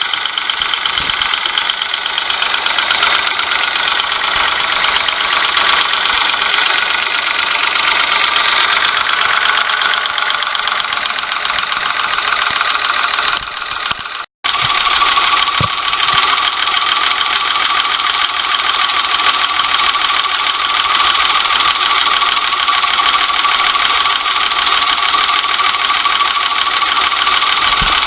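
Daihatsu S201P Hijet kei truck engine running with a fast, even clatter: an abnormal noise, on an engine that won't rev. The sound cuts out briefly about halfway, then carries on with a steady whine added.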